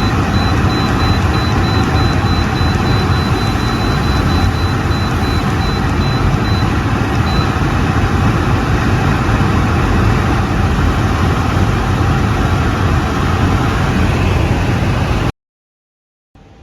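R190A commercial dehumidifier running just after power-on: a loud, steady fan and blower rush, with a thin high tone broken into short pulses through about the first half. The sound cuts off suddenly near the end.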